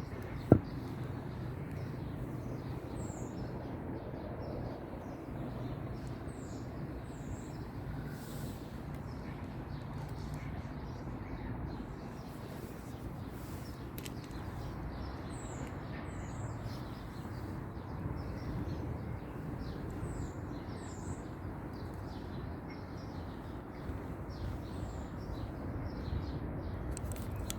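Outdoor ambience: small birds chirping now and then over a steady low rumble, with one sharp knock about half a second in.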